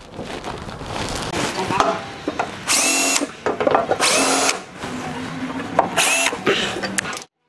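Cordless drill/driver running in three short bursts, each spinning up with a rising whine, snugging the bolts of an A/C unit's mounting plate on a truck firewall.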